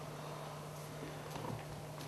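Quiet room tone: a steady low hum over a faint, even hiss, with only a few faint soft ticks.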